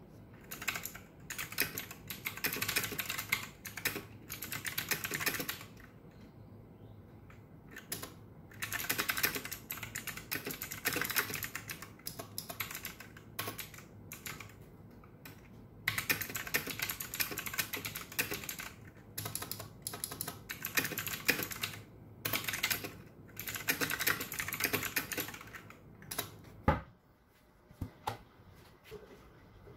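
Fast typing on a computer keyboard: dense runs of key clacks lasting a few seconds each, broken by short pauses. Near the end the typing stops abruptly, leaving a few light knocks.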